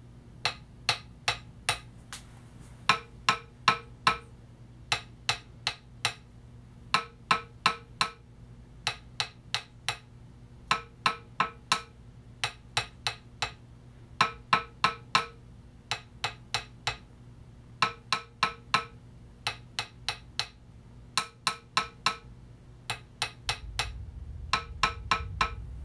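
Sony PS-X800 turntable platters struck with a thin wooden stick, in quick groups of four or five taps about every two seconds. The groups alternate between two platters, the stock one with its factory damping pads and a modified constrained-layer-damped one. One set of taps rings on with a short metallic tone; the other gives a dry knock that dies at once, showing which platter is better damped.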